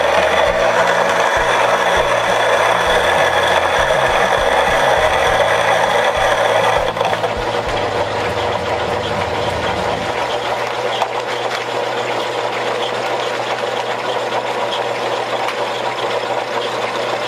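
Motor-driven homemade roller grain mill with hard plastic rollers, running steadily as it cracks malt. An irregular knocking rattle from the grain going through stops about ten seconds in, and the mill runs on a little quieter.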